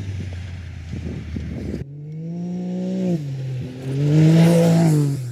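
Side-by-side UTV engine revving hard, its pitch climbing and falling twice as it powers through a corner drift, with a spray of dirt hissing near the loudest rev. The sound cuts abruptly about two seconds in.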